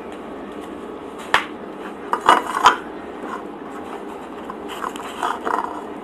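Close-up handling sounds of food and tableware: a sharp click, then a quick cluster of louder clicks and knocks, then softer crinkling and rustling as the bread roll is picked up. A steady low hum of room noise lies underneath.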